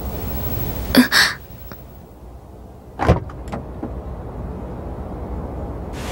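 Car door being worked: a steady low car rumble, then a latch clicks open with a short creak about a second in, and a heavier knock of the door about three seconds in, followed by a few small clicks.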